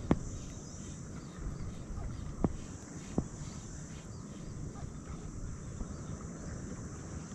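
Three sharp clicks or knocks, about a second or two apart, over a steady low outdoor rumble.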